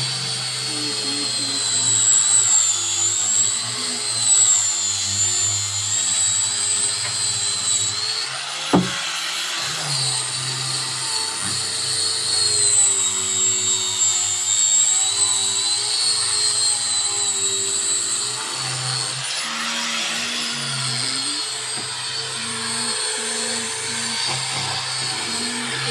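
An electric woodworking power tool motor running with a high whine that wavers slowly in pitch as the load changes, with one sharp knock partway through. Music plays underneath.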